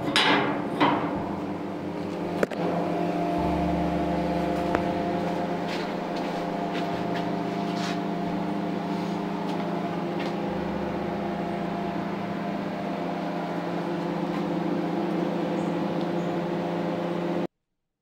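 A steady mechanical hum of several held tones, with a few sharp clicks and knocks near the start. It cuts off suddenly near the end.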